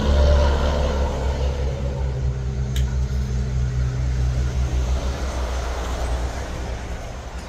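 A motor vehicle's engine running close by, a low steady drone that fades away over the last couple of seconds. A single sharp click a little under three seconds in.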